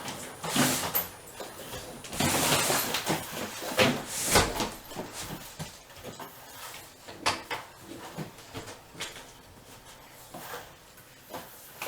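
Distant gunfire from a shooting range: a string of sharp shots at irregular intervals, heaviest in the first half, thinning to scattered single shots later.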